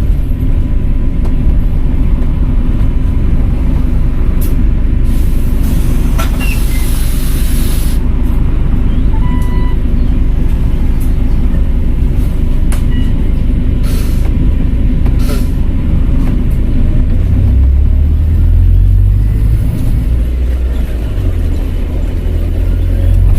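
Volvo B5LH diesel-electric hybrid bus running with a steady low rumble, and a hiss of air lasting about three seconds some five seconds in, typical of the air brakes or door pneumatics.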